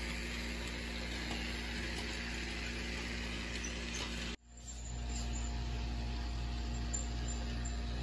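Small electric motor of a Walt Disney World toy monorail train whirring steadily as it runs along its elevated track. The sound breaks off abruptly for a moment about four seconds in, then comes back at the same level.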